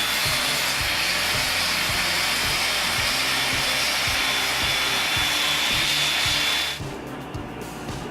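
Angle grinder running with a steady high whine over a loud rushing noise, which stops suddenly about seven seconds in. Background music with a steady beat plays throughout.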